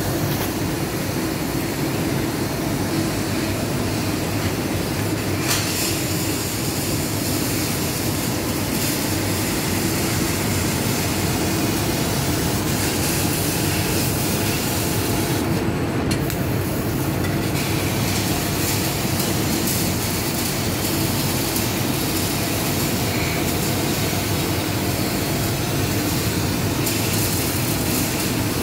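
Golden Laser fibre laser cutting machine cutting a metal sheet: a steady hiss over a low machine rumble, the hiss dropping away briefly a little past halfway.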